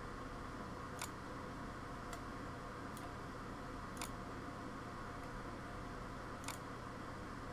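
Five sharp, spread-out clicks from operating a computer's mouse and keyboard, over a steady low hum and hiss of room tone.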